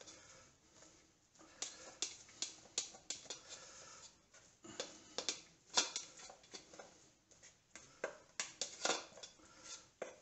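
A plastic rice paddle scraping and knocking against a rice cooker's inner pot, working rice that has stuck to the bottom loose into a glass bowl: a run of short, irregular scrapes and taps.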